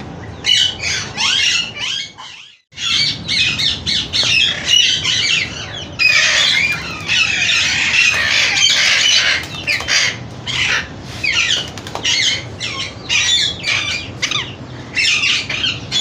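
Parrots squawking: a dense run of harsh, rapidly repeated calls, broken by a brief gap about two and a half seconds in and thickest from about six seconds in.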